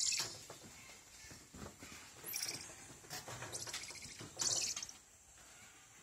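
Squirrel monkeys giving short bursts of high-pitched chirping calls, loudest at the start and again about four and a half seconds in. A faint steady high tone runs underneath.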